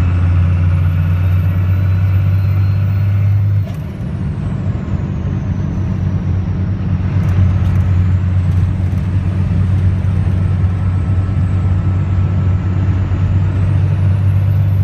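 1999 Dodge's 24-valve Cummins inline-six turbo diesel running with a loud high turbo whistle, open to the air through a bare-hose air filter on the turbo intake. The whistle climbs, cuts off sharply about four seconds in as the engine note drops, then swells again and climbs once more near the end.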